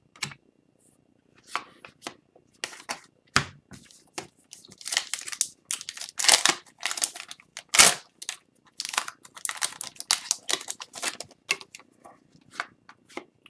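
Foil wrapper of an Upper Deck hockey card pack being torn open and crinkled, then the cards handled: a run of sharp, irregular crackles and rips.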